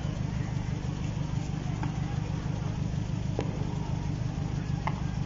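Street din from stopped and idling cars, a steady low rumble with a distant crowd of voices under it. A single sharp crack about three and a half seconds in.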